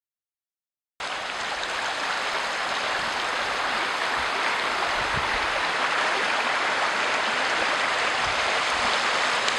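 Steady rush of a flowing stream, cutting in abruptly about a second in.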